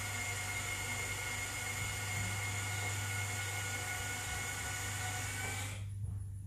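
Four electric linear actuators raising a golf-cart roof: a steady motor whine with several fixed pitches, cutting off suddenly near the end as they stop.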